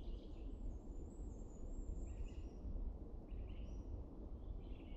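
Small songbirds calling: four short chirping phrases and a thin, high, wavering twitter, over a steady low background rumble.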